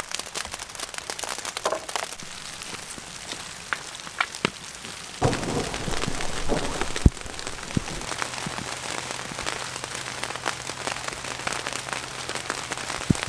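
Rain falling, a dense spatter of many small drop ticks, with a few louder knocks mixed in.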